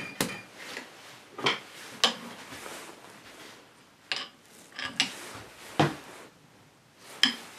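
Irregular sharp knocks and clinks of tools and wood being handled on a workbench around a hammer head clamped in a vise, about eight in all with short gaps between them.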